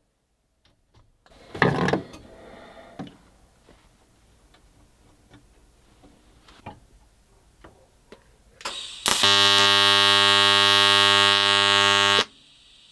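TIG welding arc buzzing steadily for about three seconds near the end, then cutting off, as it welds a broken link in the steel chain wrapped around a sword handle. About two seconds in there is a loud metallic clatter.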